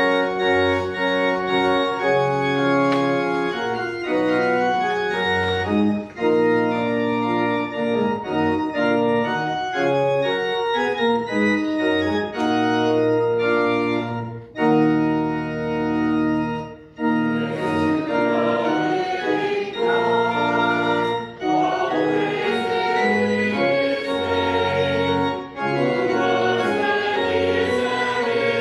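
Church organ playing a hymn in sustained chords that change every second or so. From about halfway through, the congregation's voices join in singing with it.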